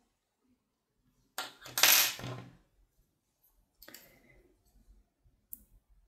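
Handling noise of a crochet hook and yarn being worked: a short rustling clatter starting sharply about a second and a half in, then a few faint clicks.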